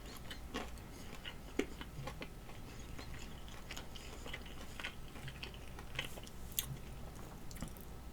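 Soft chewing and wet mouth clicks of someone eating a chicken wing, irregular and faint, with a few sharper clicks.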